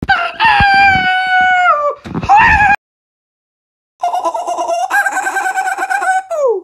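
A cartoon bird's screeching squawk: a long, slightly falling call that breaks off about two seconds in and a short second call, then after a pause another long call from about four seconds in that ends in a quick downward glide.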